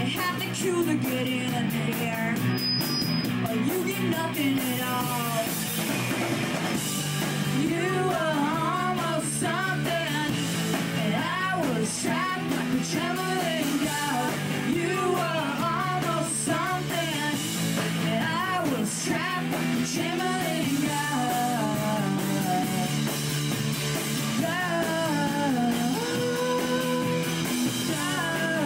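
A live rock band playing: electric guitars and a drum kit with a singer's vocal line over them.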